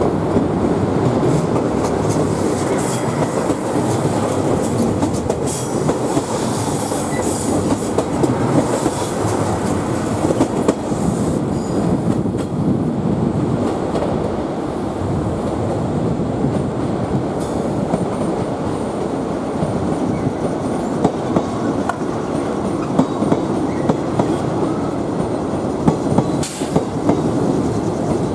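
Trains moving through a station's tracks and points: a steady rumble of wheels with clattering over rail joints and switches and scattered sharp clicks, including a JR Shikoku 2700 series diesel express train rolling slowly in.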